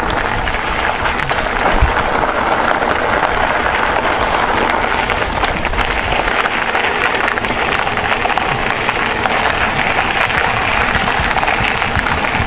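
Mountain bike rolling along a gravel trail: a steady rushing crackle of tyres on loose stone, with wind on the microphone and small scattered clicks and rattles.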